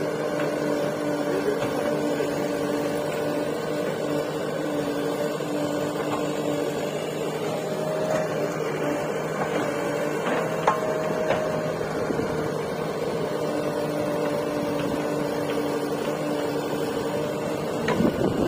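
Diesel engines of a Mahindra tractor and a JCB 3DX backhoe loader running steadily while the backhoe loads soil into the tractor's trolley. One short knock sounds about ten and a half seconds in.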